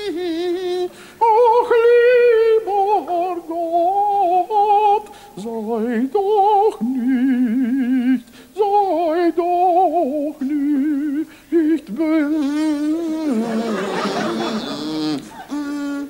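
A man's voice wordlessly humming and singing melodic lines with heavy vibrato, imitating baroque instruments and singers in a mock early German cantata. Near the end about two seconds of rough, breathy noise sound under the tones.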